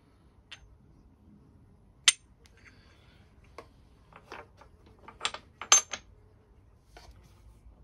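Small metal parts clinking as a handlebar GPS clamp is fitted by hand: bolts and washers tapping against the clamp pieces. A sharp clink comes about two seconds in, then a quick run of clinks from about four to six seconds, the loudest near six seconds.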